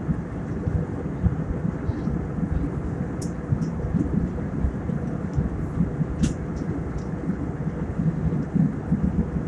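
Airliner cabin noise in cruise flight: a steady low rumble with a faint constant hum, and a couple of light ticks.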